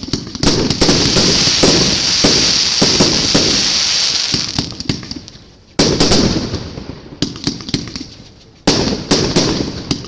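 Fireworks going off: quick sharp bangs and pops over a dense hissing crackle. It comes in three waves, one just after the start, one about six seconds in and one near the end, each starting suddenly and dying away.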